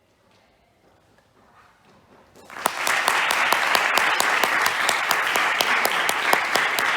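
Near silence as the last notes die away, then audience applause breaks out suddenly about two and a half seconds in and carries on steadily, with individual claps audible.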